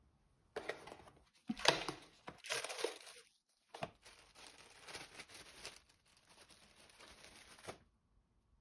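Clear plastic bag crinkling and rustling as a KN95 mask is unwrapped and pulled out, in irregular bursts that are loudest in the first few seconds and stop near the end.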